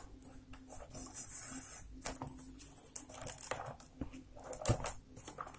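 Rolled newspaper tubes rustling, scraping and clicking against each other as a tube is worked in among the woven uprights, in irregular small noises over a faint steady hum.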